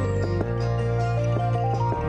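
Gentle new-age background music: a soft melody over held chords, the chord changing about half a second in and again near the end.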